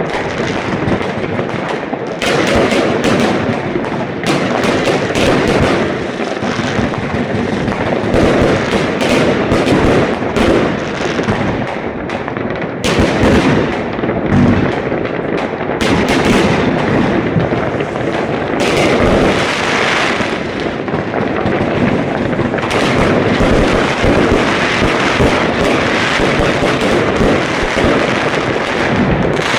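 Fireworks going off in a dense, continuous barrage: rapid overlapping bangs and crackling with no let-up.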